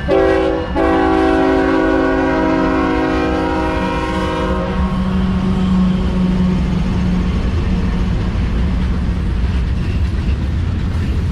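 A CSX diesel freight locomotive's multi-chime air horn blows a short blast and then a long one, stopping about five seconds in. The rumble of the locomotives and freight cars rolling past on the track carries on after it.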